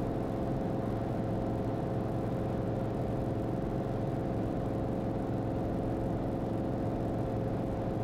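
Cirrus SR22's piston engine and propeller running at steady climb power, heard from inside the cabin as an even, unchanging drone.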